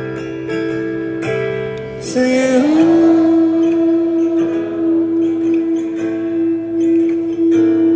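Live concert music recorded from the crowd: guitar chords are strummed, then about two seconds in a sung note slides up and is held steadily for about five seconds over the guitar.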